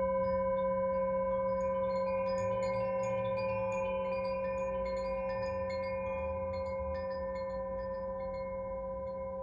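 A struck brass singing bowl ringing on with a steady tone that slowly fades, while a hand-held cylindrical wind chime is gently swayed, tinkling many light, high notes over it from about a second in.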